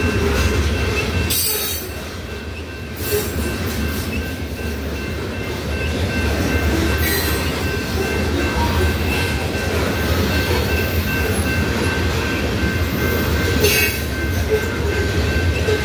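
Loaded covered-hopper grain cars rolling past on the rails: a steady low rumble of wheels, with a faint steady high squeal over it and a few brief sharp noises, about a second and a half in, about three and seven seconds in, and near the end.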